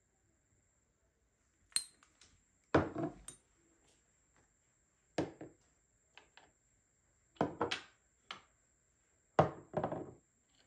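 Glass perfume bottles and makeup containers set down one by one on a vanity tray: short clinks and knocks in about six small clusters, starting a couple of seconds in.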